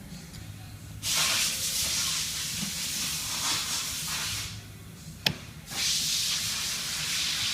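A steady high-pitched hiss that comes on about a second in, stops briefly after the middle, then resumes, with one sharp click in the gap.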